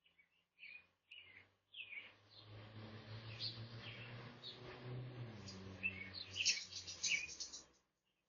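Small birds chirping in short high calls. From about two seconds in, a steady low hum and rushing noise runs under them until it cuts off near the end.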